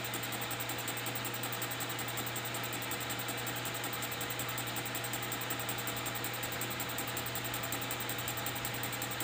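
Metal lathe running steadily, its spindle turning a square plate in the chuck while the plate is faced: an even whir over a steady low motor hum.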